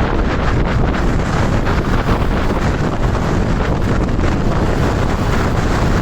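Strong wind buffeting the microphone: a loud, steady rumble with a hiss on top.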